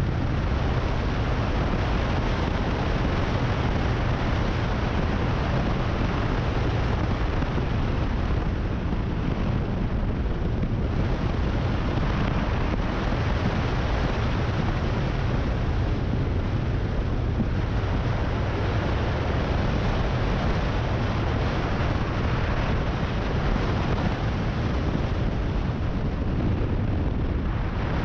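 Motorcycle riding at a steady road speed: the engine's drone mixed with heavy wind buffeting on the microphone, a steady deep rumble.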